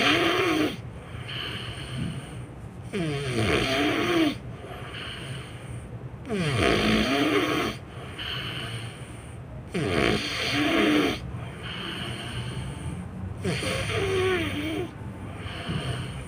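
A sleeping person snoring loudly, one rough snore with a wavering pitch about every three and a half seconds, five in all.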